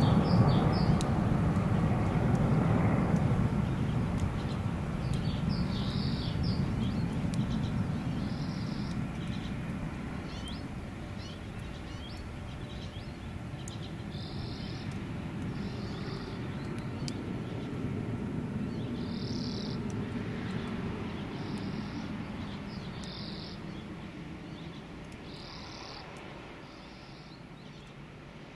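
Airplane overhead, its low rumble slowly fading away. A small bird gives short high chirps every few seconds.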